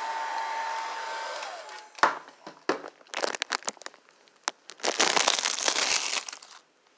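A hair dryer runs with a steady whine, then switches off and winds down within the first two seconds. Plastic sheeting then crinkles and crackles in irregular bursts, loudest in a dense rustle over the last couple of seconds.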